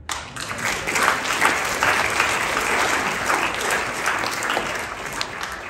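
Audience applauding, many hands clapping together. It starts suddenly and tapers off near the end.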